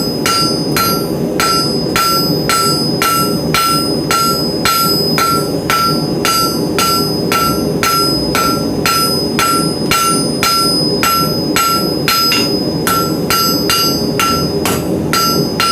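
Hand hammer striking hot 3/8 in round steel on an anvil, a steady rhythm of about three blows a second with the anvil ringing clearly after each. The bar is being drawn out into a square taper.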